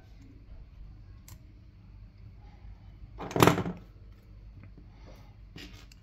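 Small hand tools being handled on a workbench: a faint click, then one louder short clatter about three and a half seconds in, over a low steady hum.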